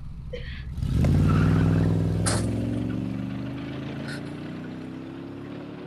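Van engine sound effect: the engine comes in about a second in and runs on, its pitch climbing slowly as the van accelerates away. There is a sharp click a little after two seconds.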